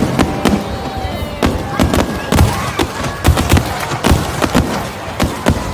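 A fireworks display going off in quick succession: a dense string of sharp bangs and pops, several a second, with faint whistling glides between them.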